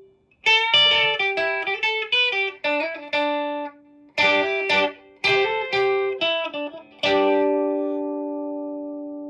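Electric guitar, a Fender Telecaster played through its Lindy Fralin High Output bridge pickup: two quick phrases of picked single notes with a short gap between them, then the last notes left to ring and fade from about seven seconds in.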